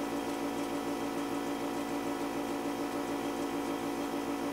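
Steady electrical hum made of several fixed tones over a low hiss, with a faint, even pulse underneath.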